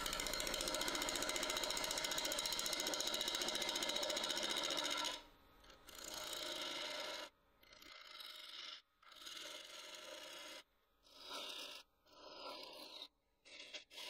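Gouge cutting a spinning manzanita burl on a wood lathe, with a fast, even chatter for about five seconds. After that the cutting comes in shorter stretches broken by sudden silences.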